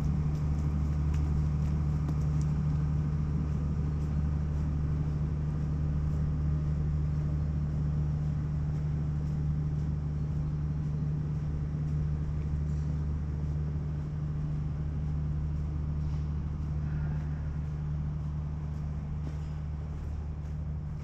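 A motor running at constant speed: a steady low engine hum that fades slowly.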